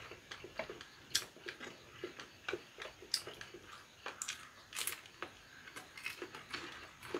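Close-up chewing of battered Korean fried food (twigim), with several sharp, crackly crunches of the batter and soft mouth sounds in between.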